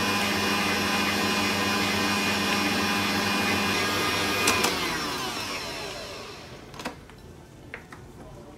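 Bosch stand mixer running steadily as it beats cake batter, then switched off with a click about four and a half seconds in, its motor whine falling as it winds down. A couple of light knocks follow.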